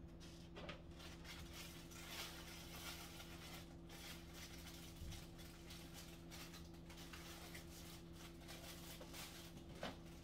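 Faint scratchy rustling and a few light knocks of things being handled, over a steady low electrical hum.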